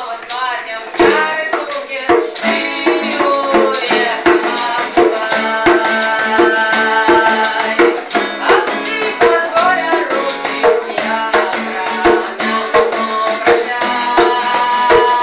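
Live acoustic song: a strummed acoustic guitar and a hand drum beating a steady rhythm, with a woman singing over them.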